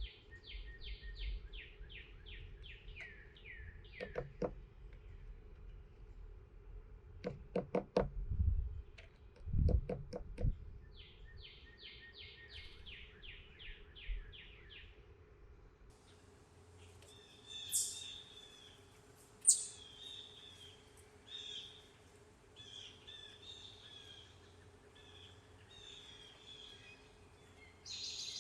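Wild songbirds at a backyard feeder: a rapid trill of falling notes twice, then varied chirps and calls. Several sharp knocks and taps come between the trills.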